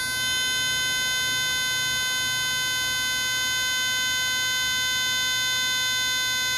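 A steady electronic beep tone with a buzzy edge, pitched around 500 Hz with many overtones. It starts suddenly and holds unchanged in pitch and loudness, an annoying sound.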